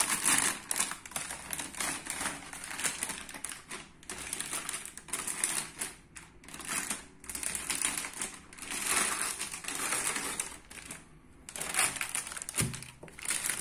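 Metallized anti-static bag crinkling and rustling in irregular bursts as a motherboard is slid out of it and handled.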